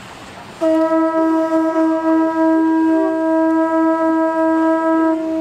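A ceremonial horn blown in one long, loud, steady note, starting about half a second in.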